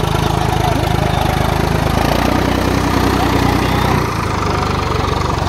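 Farmtrac 60 tractor's diesel engine idling steadily, its note shifting slightly about two seconds in and again about four seconds in.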